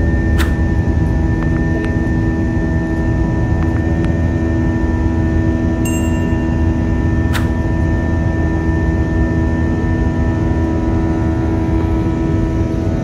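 Airbus A321 cabin noise in the climb after takeoff: a steady jet-engine and airflow rumble with several held engine tones over it. Two sharp clicks cut through it, one just after the start and one about seven seconds in.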